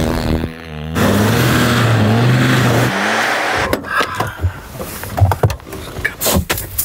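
An SUV's engine revving hard while its wheels spin in snow, stuck and getting nowhere. It holds a steady high note for about two seconds and then drops away. A run of knocks and rustles follows.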